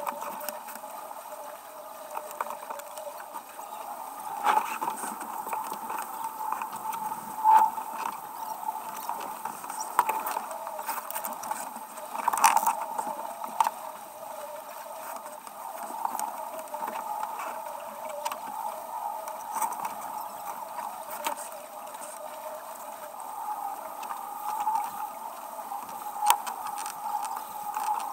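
Sailing yacht under way: a steady rush of water along the hull and wind, with a few sharp knocks of gear and crew on deck, the loudest about halfway through.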